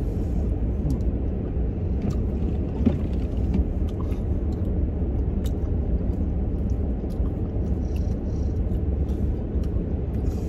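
Steady low rumble inside a car's cabin, with faint scattered clicks from a sandwich being handled and eaten.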